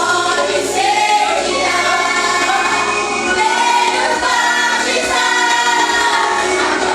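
Worship band and group of singers performing a Christian worship song, voices singing together over sustained instrumental backing.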